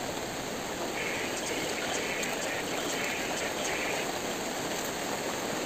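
Facial steamer running with a steady hiss.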